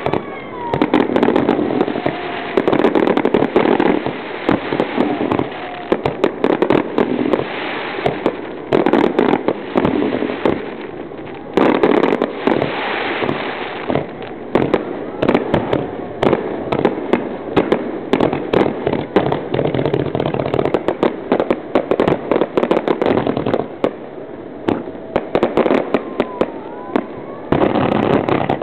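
Fireworks going off in quick succession: many sharp bangs and crackles, overlapping with no pause.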